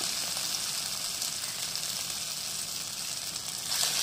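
Vegetable Manchurian balls of grated cabbage and carrot shallow-frying in hot oil in an aluminium pan, a steady sizzle. Near the end the sizzle gets louder as another ball is dropped into the oil.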